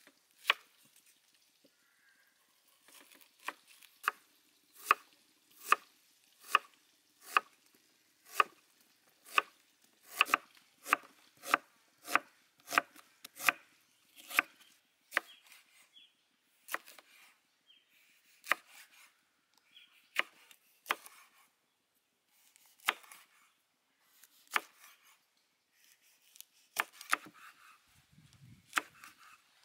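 Kitchen knife slicing an onion and then red chili peppers on a wooden cutting board: sharp knocks of the blade on the board, at a little over one a second at first, then more spread out.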